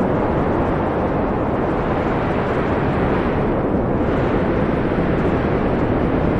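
Wind blowing steadily with a dense low rush, its higher hiss swelling slightly as a gust passes about three to five seconds in.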